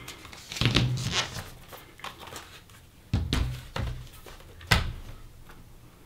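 Plastic clicks and knocks from handling a laptop as its battery pack is pulled out and the machine is turned over and set down. The loudest is one sharp knock about three-quarters of the way through.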